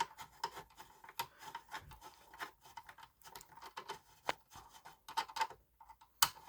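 Screwdriver working a small screw on a fire alarm speaker strobe: faint, irregular clicks and scrapes of the tip in the screw head and of the unit being handled.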